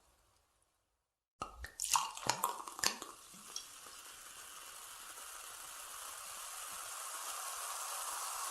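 Carbonated drink: a quick run of sharp clicks and cracks about a second and a half in, then a steady fizzing hiss that grows slowly louder.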